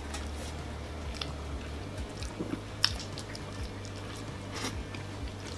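A man biting into and chewing saucy chicken parmesan, with wet squishing, lip smacks and scattered small clicks of the mouth.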